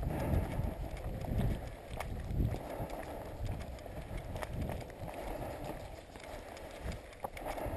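Footsteps of trail runners jogging uphill on a dry, stony dirt trail, with a crunch of grit at some strides, over low thumps of wind and handling on the moving microphone.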